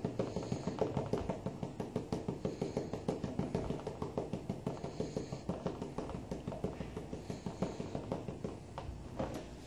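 A gold pan being patted and tapped by hand while it is swirled with water, a steady run of light knocks at about five a second, settling the heavy gold and black sand while the lighter material is worked off the top.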